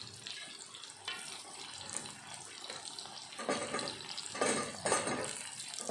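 Brinjal slices deep-frying in hot oil in a cast-iron kadai, sizzling steadily. The sizzle swells in a few louder bursts about halfway through as a utensil stirs the slices.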